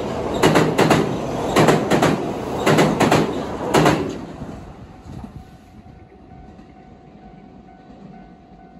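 Train passing close by, its wheels knocking over rail joints in quick pairs of clickety-clack beats. The beats stop about four seconds in and the running noise fades away.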